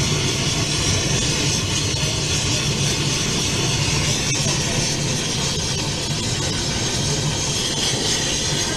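Oxy-fuel gas torch flame burning steadily as it melts brass in a small crucible: an even, continuous hiss and rush with no breaks.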